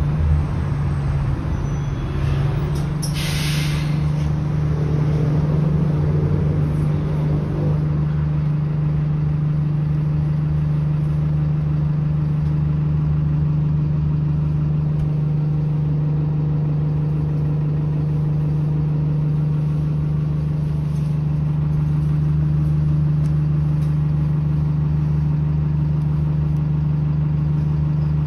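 Cabin sound of an Alexander Dennis Enviro200 single-deck bus on the move: a steady engine drone with a strong low hum. About three seconds in, a short burst of hiss.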